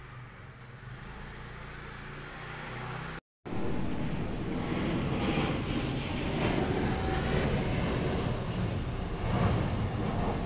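Airplane flying overhead: a loud, steady rumbling drone that starts suddenly after a brief cut about three seconds in. Before the cut there is a fainter steady hum.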